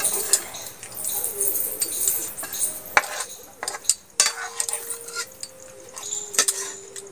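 A metal spoon scraping and clinking against a steel kadai and steel serving bowls as fish curry is ladled out, with a few sharp clinks spread through it.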